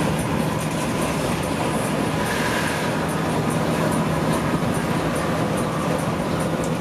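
Cabin noise of a Mercedes-Benz OH 1626 coach cruising at highway speed: a steady engine drone with tyre and road noise, swelling slightly midway as it overtakes another coach.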